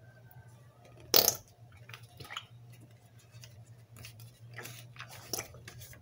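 Kitchen handling sounds as a small carton of cooking cream (creme de leite) is opened and emptied into a saucepan: one short, loud crunching scrape about a second in, then softer clicks and rustles. A faint steady low hum runs underneath.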